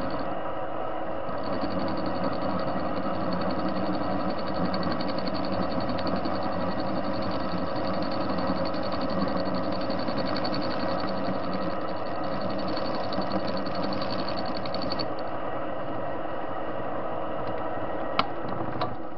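TV-16 metal lathe running steadily, a hum of several steady tones with a pulsing high whine on top; the whine cuts off about fifteen seconds in while the machine keeps running, and a single sharp click sounds near the end.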